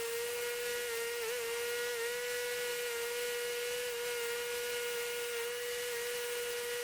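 A small motor running with a steady whine, holding one pitch with slight wavers.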